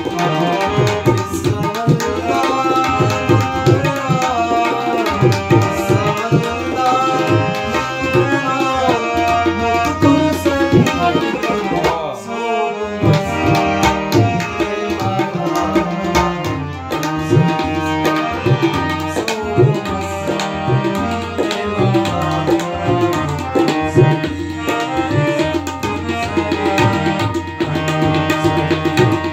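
Tabla and harmonium playing Brahui music, with quick tabla strokes under the harmonium's melody and a brief break about twelve seconds in.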